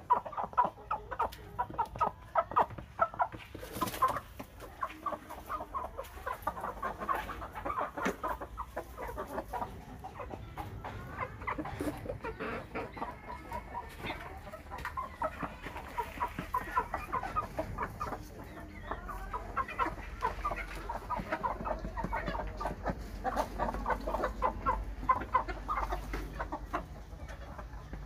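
Chickens clucking in rapid runs of short clucks.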